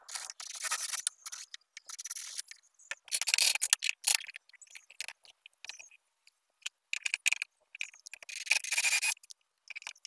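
Cordless drill boring into a wooden block in several short bursts, the bit scraping through the wood, with pauses between.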